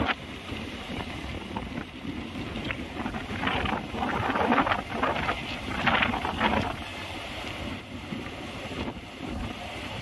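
Wind buffeting the microphone over a steady rumble of road traffic, louder for a few seconds in the middle.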